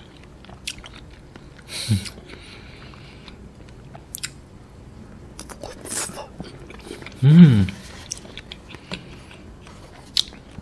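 A person biting and chewing soft agar-agar jelly, with wet mouth clicks and smacks. Two short hums falling in pitch come through, the louder one about seven seconds in.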